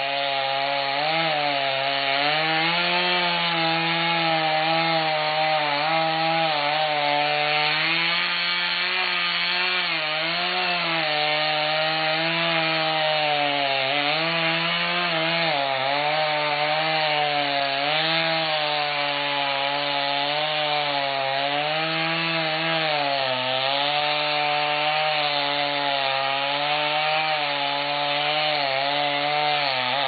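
Two-stroke chainsaw running under load while cutting into a tree trunk, its engine note wavering up and down as the chain bites into the wood.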